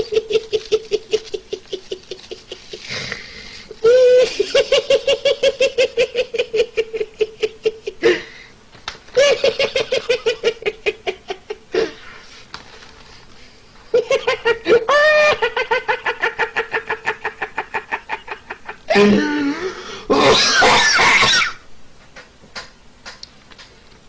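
A man laughing uncontrollably in long bouts of rapid, high-pitched "hehehe" pulses, about five a second, with short breaks for breath between bouts. Near the end comes a louder, harsher burst of laughter, then the laughing drops away to quiet.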